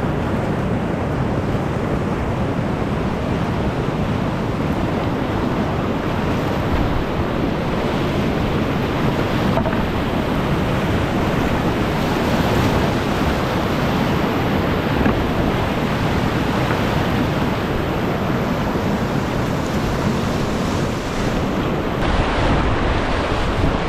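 Whitewater rapids rushing loudly and steadily right around a kayak running them, on a river at high spring flow.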